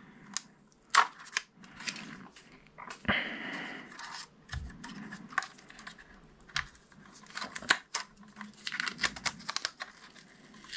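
Small plastic clicks and a short scrape of hands handling a DJI Mavic Mini drone, pulling a fitted cover or strap off it. The clicks are irregular, with a brief scraping rustle about three seconds in and a quick cluster of clicks near the end.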